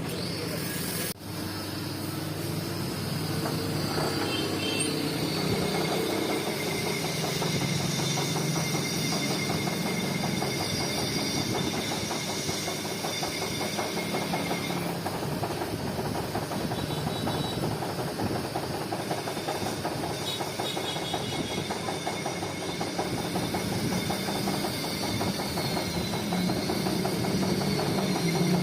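A workshop machine running steadily, with a fine rapid rattle and a high whine that stops about halfway through.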